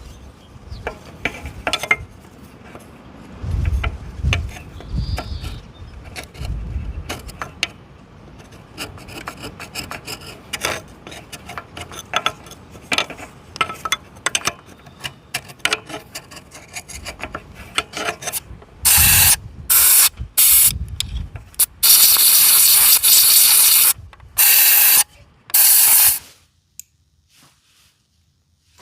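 Hand scraping and rubbing with many small clicks and knocks. Later come about seven short, loud hissing blasts, the longest about two seconds, and then it goes quiet.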